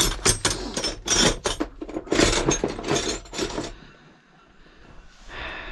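Metal hand tools clattering and scraping against one another in quick, irregular knocks for about three and a half seconds, as when a wrench is searched for. After a lull, a faint steady rush of water filling comes in near the end.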